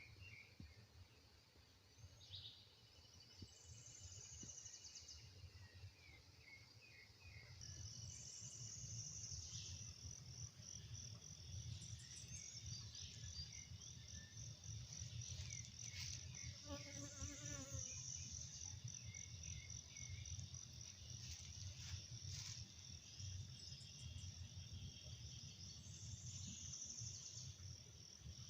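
Insects trilling with a steady, high-pitched, rapid pulsing that starts about a quarter of the way in and carries on, over a low rumble. Short high chirps come before the trill begins, and a brief lower call sounds about halfway through.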